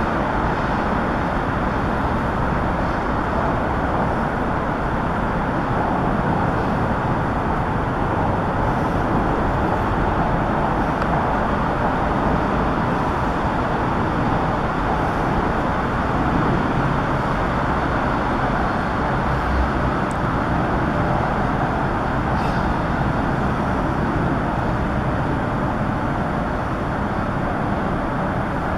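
Steady outdoor background noise: a continuous low rumble and hiss with no distinct events and no change in level.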